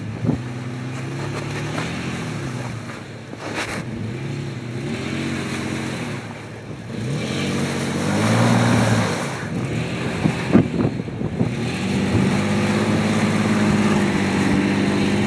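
Off-road vehicle's engine working at low speed, its pitch rising and falling as the throttle is opened and eased off, with a louder push about eight seconds in and a steadier, higher pitch held near the end. A few sharp knocks from the vehicle are heard along the way.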